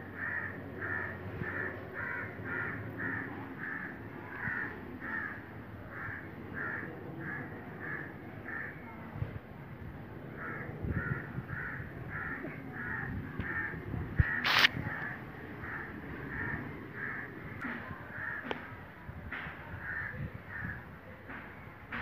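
An animal crying out in short, evenly spaced calls, about two a second, breaking off briefly near the middle and then carrying on. A single sharp knock about two-thirds of the way through.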